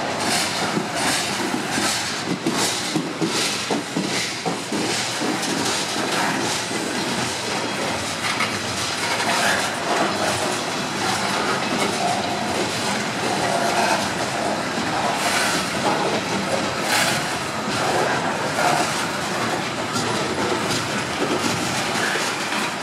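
Coal train's open-top steel coal cars rolling past close by: a steady rumble of wheels on rail with repeated sharp clacks as the wheels cross the track.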